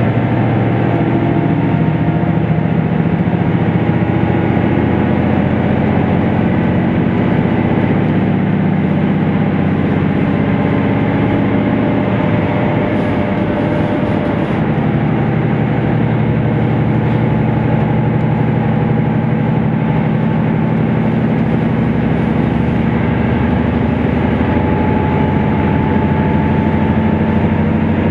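KiHa 75 series diesel railcar running at speed, heard from inside the passenger cabin: a steady diesel engine drone over the rumble of wheels on rail. The engine note shifts about halfway through.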